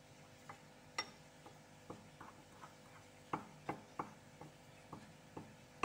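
Metal spoon stirring dry flour and cocoa powder in a bowl, clicking and scraping against the bowl in light taps about two a second. The louder taps come about a second in and again between three and four seconds in.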